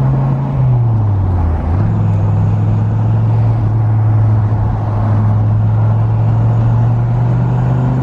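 1994 Dodge Viper's 8.0-litre V10 engine running under way, heard from inside the cabin. Its pitch sinks about a second in, jumps back up just under two seconds in, then holds steady.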